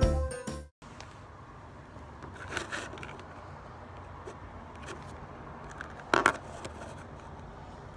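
Music ends in the first second. Faint room background follows, with a few small scraping and rustling handling sounds and one short, sharper click or rustle about six seconds in.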